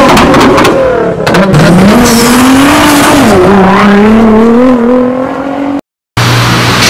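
A car engine revving in an intro sound effect, with sharp crackles and pops at the start and the pitch climbing and then holding with small wobbles; it cuts off near the end. After a brief gap, the 1.6-litre turbocharged four-cylinder of a Mini Cooper S R58 with an aftermarket downpipe and catalytic converter runs steadily at idle.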